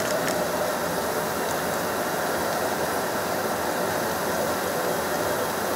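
Steady, unbroken rushing hiss of a working kitchen around a large stockpot of honey-braised chicken drumsticks steaming on the stove.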